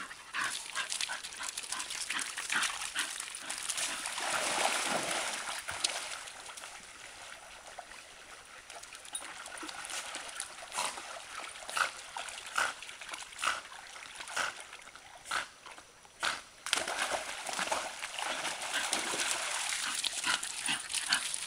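Several small dogs playing at a shallow stream, splashing through the water and scrabbling over pebbles, with short yips now and then.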